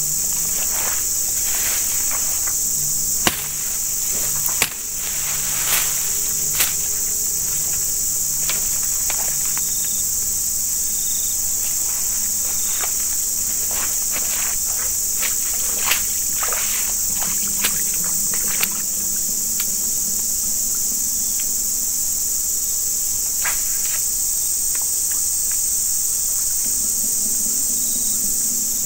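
Steady, high-pitched chorus of insects, unbroken throughout, with scattered sharp clicks and knocks, the sharpest two about three and five seconds in.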